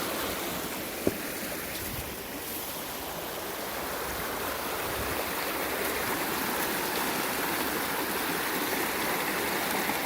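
Swollen, flooded creek rushing fast and loud in a steady roar of water. A single sharp click sounds about a second in.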